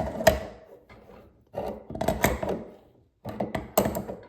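Hand tool working on a faucet part as it is tightened back down: three spells of clicking and scraping, metal on metal, with short pauses between.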